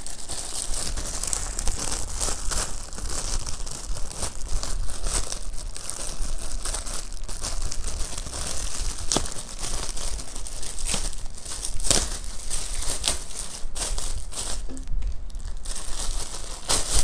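Thin clear plastic bag crinkling and tearing as it is peeled off a pair of plastic safety goggles: a continuous run of crackles with occasional sharper snaps.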